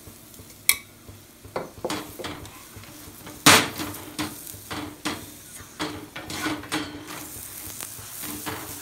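Oiled chapati sizzling on a hot tawa while a flat spatula presses and scrapes it against the griddle so it puffs. There is a sharp clack about a second in and the loudest knock about three and a half seconds in.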